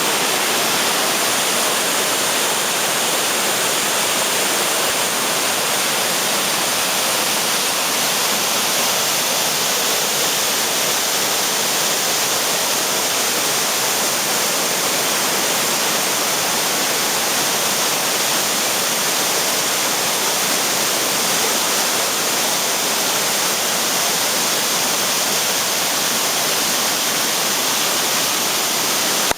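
Flooded creek rushing, a steady loud roar of high floodwater after heavy rain.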